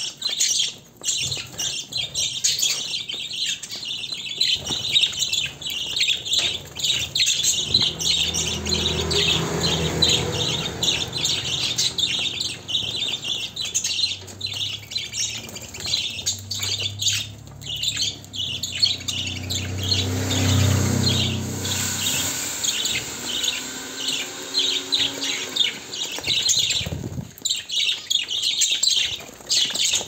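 A flock of budgerigars chattering continuously, a dense mix of fast, high chirps and squawks.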